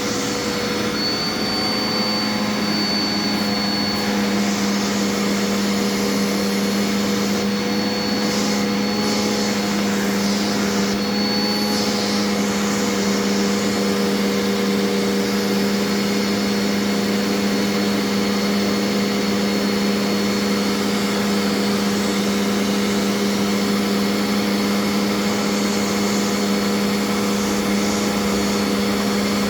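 Dirt Devil Endura Reach vacuum running steadily with a constant hum, its hose sucking dust off a Shark vacuum's filter. A thin high whistle comes and goes several times in the first dozen seconds.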